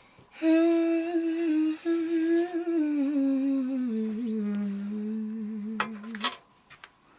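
A female singer humming one long held note that steps slowly down in pitch partway through, as she tunes in before singing.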